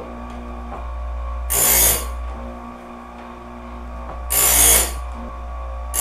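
Electric chainsaw sharpener, converted to sharpen band sawmill blades, running steadily as its coarse pink grinding wheel is brought down onto the blade's teeth in three short, loud grinding passes about three seconds apart, one tooth per pass.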